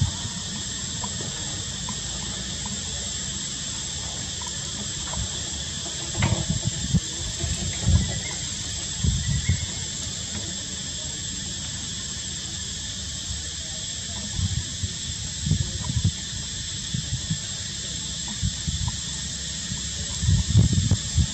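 Steady forest insect chorus, a continuous high hiss with one held high tone, broken by irregular low thumps and rumbles several times.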